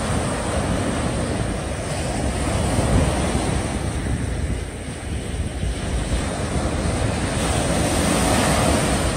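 Small waves breaking and washing up a sandy beach, the surf swelling and easing, with wind buffeting the microphone.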